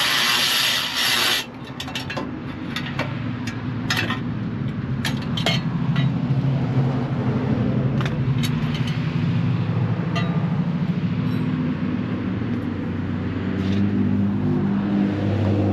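An engine running steadily as a low, wavering hum that swells near the end, with scattered sharp clicks and clinks of metal parts being handled. A loud burst of noise lasts for the first second or so.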